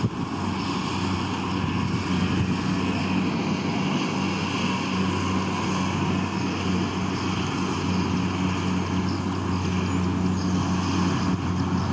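Kubota DC70 Plus combine harvester's diesel engine running at a steady pitch as the machine cuts through ripe rice, a continuous hum with a rushing mechanical noise over it.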